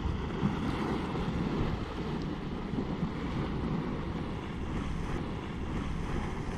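Wind buffeting the microphone in a steady low rush, mixed with the churning and splashing of Spouter Geyser's boiling pool.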